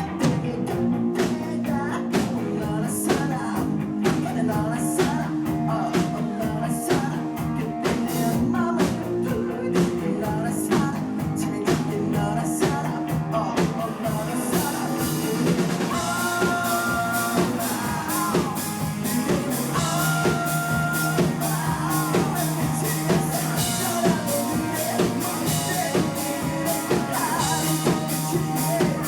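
Rock band playing live: drum kit keeping a steady beat under guitars, with a sung vocal line. About halfway through, the cymbals thicken and the voice comes through more clearly.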